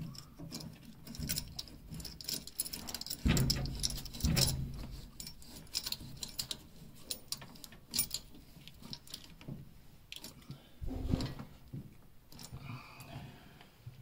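Light metallic clicking and clinking as a new brass boiler pressure relief valve is turned by hand into its threaded fitting, with a few dull thumps.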